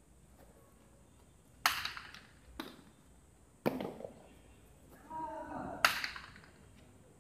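A hard jai alai ball (pelota) cracking against the fronton's walls and floor during a rally: four sharp, echoing cracks, the loudest about six seconds in.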